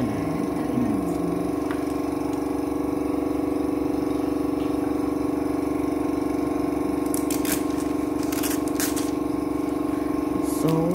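Vacuum motor running with a steady hum, drawing a clear plastic sheet down onto gold-leafed kimono fabric to press the gold in. Several short crinkles of the plastic sheet come in the second half.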